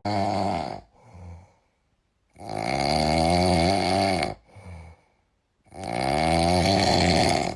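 An animal snoring loudly in a steady rhythm, one snore about every three seconds. Each long snore has a fluttering rattle and falls in pitch, with a short, faint breath between snores.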